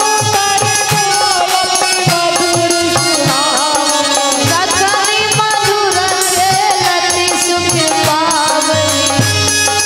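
Live Hindi devotional aarti music: a wavering, gliding melody over held notes, with a steady hand-drum beat and jingling small percussion.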